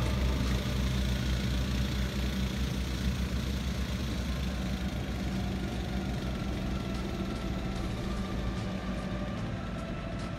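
Diesel engine of a skid-steer loader running steadily as the machine drives away, slowly fading. More heavy equipment is running farther off.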